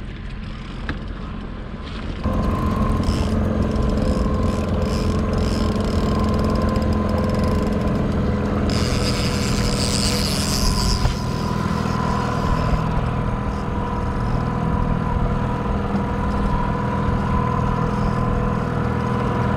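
Boat motor running steadily at trolling speed, louder from about two seconds in, with a brief rush of hiss near the middle.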